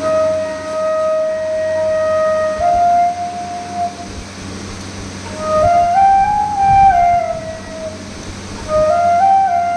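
Bamboo bansuri flute played solo as a try-out of a new flute: a long held note that steps up once, a pause, then short phrases of notes climbing step by step and falling back down.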